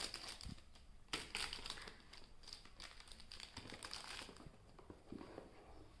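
Faint crinkling and rustling of a craft kit's plastic and cardboard packaging being handled, with scattered light clicks and a sharper crackle about a second in.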